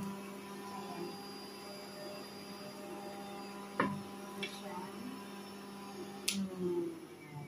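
Electric juicer's motor humming steadily, with a few sharp clicks and knocks about halfway through and near the end as the juice jug is handled.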